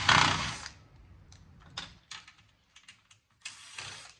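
A hard drive being pried loose from a cable box's metal chassis: a loud scrape at the start, a run of sharp clicks and ticks of metal and plastic parts, then another scrape near the end.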